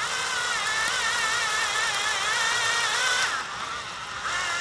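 Cordless drill turning slowly, its twist bit boring out a quarter-inch hole in a 3D-printed ABS part. The motor whine wavers slightly, drops off a little past three seconds in and picks up again near the end.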